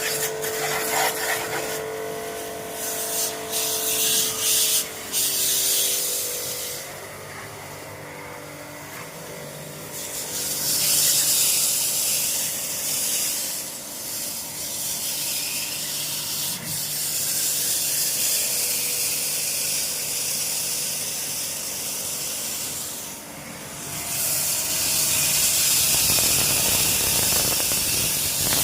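High-pressure water jet from a pressure-washer pump spraying during air-conditioner servicing, hissing in short bursts at first and then in long stretches that stop and start again, over the steady hum of the pump.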